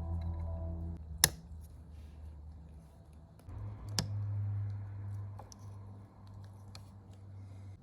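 Two sharp clicks about three seconds apart and a few fainter ticks over a steady low hum.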